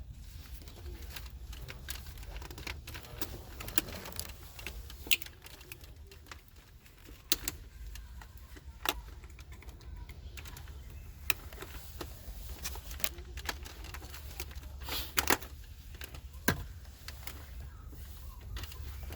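Scattered sharp clicks and knocks of plastic centre-console trim and tools as the Range Rover Sport's climate control panel assembly is worked loose, over a low steady hum.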